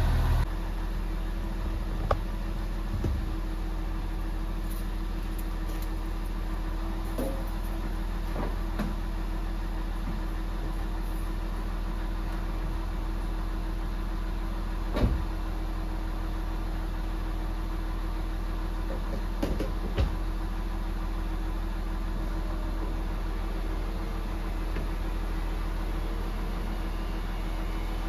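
2003 Porsche Boxster's flat-six engine idling steadily and smoothly just after being reinstalled, with a few short clicks or knocks, the sharpest about halfway through.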